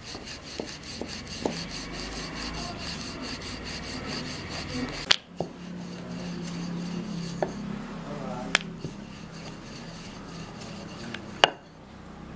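Wooden rolling pin rolling out poori dough on a flour-dusted rolling board, a steady rubbing and scraping with fast even ticks at first, broken by a few sharp knocks.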